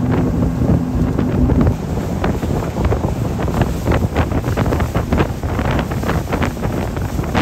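Heavy wind buffeting the microphone on a boat running at speed over choppy water, with repeated slaps of hull and spray. A low steady hum is heard for the first second or two.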